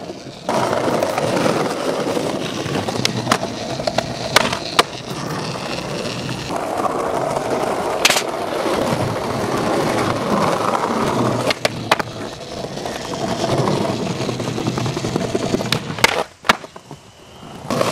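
Skateboard wheels rolling over concrete with a steady rough grind, broken by sharp clacks of the board hitting the ground and ledges, about eight of them spread through the stretch.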